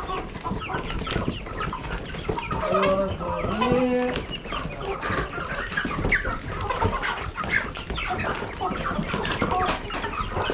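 A large mixed flock of laying hens clucking and squawking, many short overlapping calls at once.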